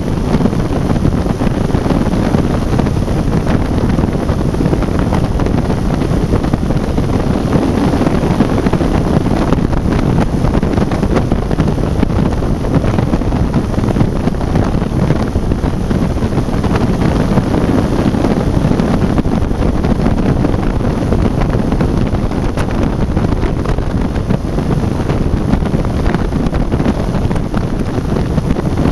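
Quicksilver MX ultralight aircraft in flight: its engine and propeller run at a steady drone, mixed with heavy wind rushing over the microphone.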